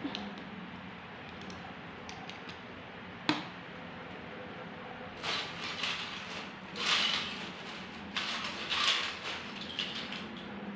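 Plastic Lego bricks being handled: one sharp click about three seconds in, then three bursts of scraping and rustling in the second half, over a steady low hum.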